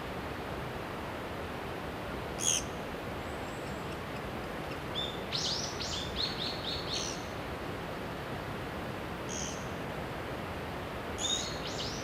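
Bird calls: a few single high calls and two quick runs of short, downward-sliding notes, over a steady hiss of background noise.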